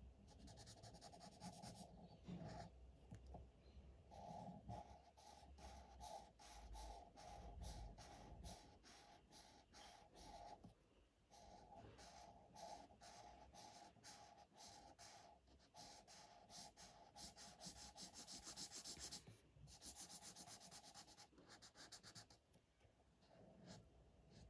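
Faint scratching of a felt-tip marker nib rubbed back and forth on paper while colouring in, about three strokes a second with a few short pauses.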